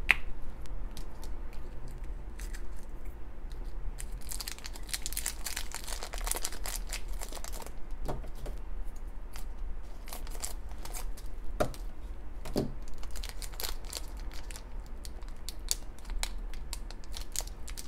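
A thin foil blind-bag wrapper crinkling and tearing as it is opened and crumpled by hand. It starts quietly, turns into a dense spell of crackling about four seconds in, then goes on as scattered crackles.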